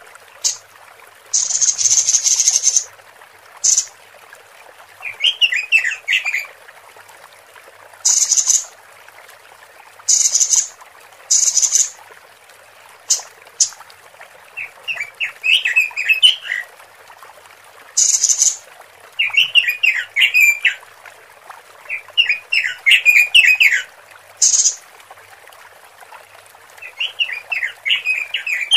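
Female Pekin robin (red-billed leiothrix) calling, a lure call for males: quick runs of chirping notes alternating with short, harsh, hissing rasps, repeating every few seconds.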